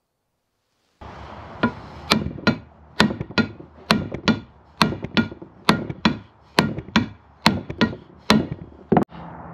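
A hand sledgehammer strikes the steel eye of a Jeep JK steering link over and over, about two blows a second, to drive out a rust-seized ball joint. The blows start about a second in, each a sharp clank with a short ring.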